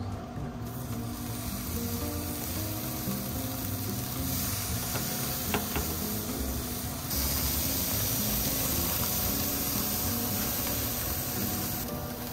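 Marinated pork souvlaki skewers sizzling on the hot grates of a gas grill as they are laid on. The sizzle is a steady hiss that steps up about four seconds in and again about seven seconds in. Background music plays underneath.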